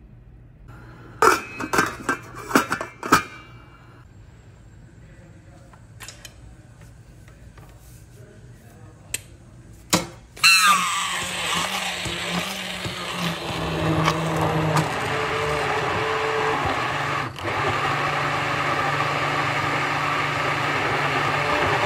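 A few sharp clattering knocks, then about halfway through an immersion stick blender starts and runs steadily, its blade churning and puréeing cooked lentil soup in a metal pot.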